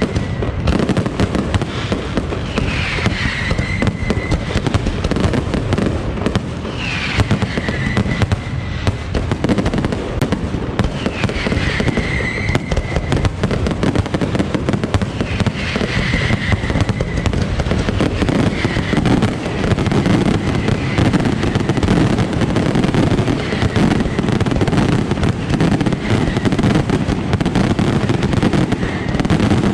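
Aerial fireworks display: dense, continuous rapid bangs and crackling, with a high whistle that falls in pitch and recurs every few seconds.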